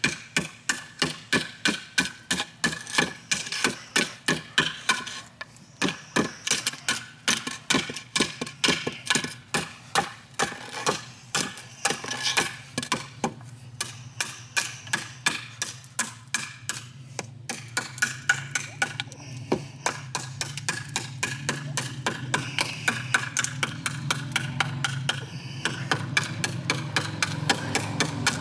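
A hand-forged 1084 carbon-steel knife chopping repeatedly into a wooden post in a chop test of its edge, about three sharp chops a second. A low steady hum grows louder underneath in the second half.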